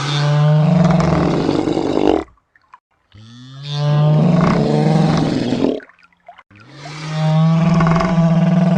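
Rhinorex toy dinosaur's electronic roar played three times, each roar about two and a half seconds long with short silent gaps between. Each opens with a rising sweep and then holds a low, steady pitch; the third is still going at the end.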